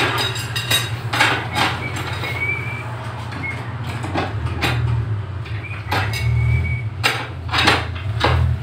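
Thin steel reinforcing rods clanking against a bench-mounted pin jig and a pipe bending bar as they are bent by hand: irregular sharp metal clanks, about one or two a second, over a steady low hum.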